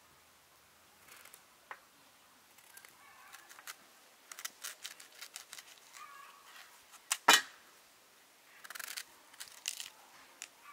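Knife peeling a quince: short, irregular scraping cuts of the blade through the firm fruit skin, with one sharp knock about seven seconds in.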